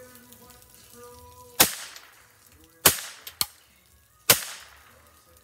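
Custom Ruger 10/22 semi-automatic rifle firing .22 LR rounds: three sharp shots roughly a second and a half apart, with a fainter crack shortly after the second.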